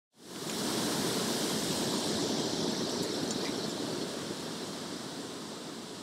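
Steady rush of falling water, like a waterfall, starting suddenly and slowly getting quieter.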